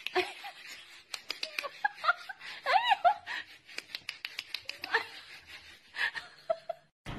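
Kitten's claws ticking on a wooden floor as it walks, in quick irregular clicks, with a couple of short high rising-and-falling cries about three seconds in.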